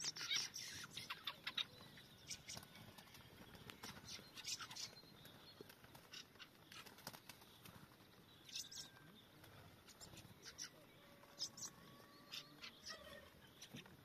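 Thrushes giving short, high calls in scattered clusters. The calls are densest in the first second or so, then come in small groups every second or two.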